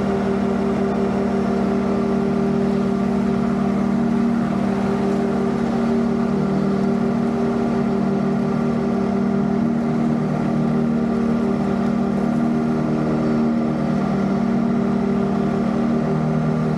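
Engine of a riding zero-turn lawn mower running steadily at working speed as the mower drives across the lawn.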